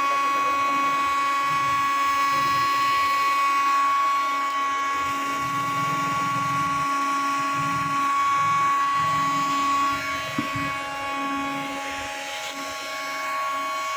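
Small hand-held electric power tool running with a steady high whine, easing slightly in level about ten seconds in.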